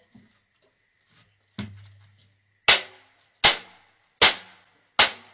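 A single weaker knock about one and a half seconds in, then four loud, sharp cracks at an even pace, about one every three-quarters of a second.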